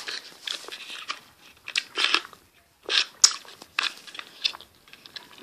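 A person chewing a crunchy candy stick, irregular crisp crunches coming one after another with short pauses between them.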